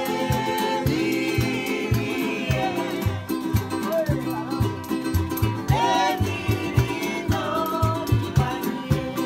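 Live folk-style music: an acoustic guitar strummed with a one-string stick bass plucked in a steady beat of about two to three low notes a second, under singing voices.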